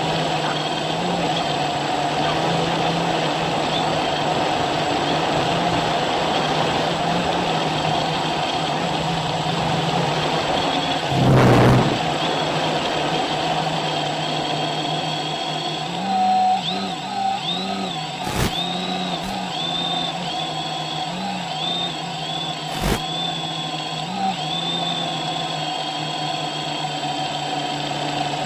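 Quadrocopter's electric motors and propellers humming in flight, a steady multi-tone buzz that wavers up and down in pitch as the throttle shifts in the second half. A short loud rushing burst about eleven seconds in and a few sharp clicks interrupt it.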